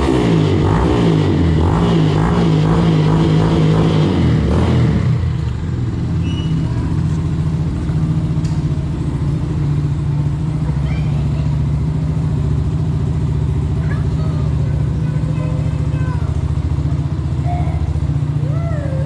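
Yamaha Fazer 150's single-cylinder engine running steadily at idle, with music over it for the first five seconds or so.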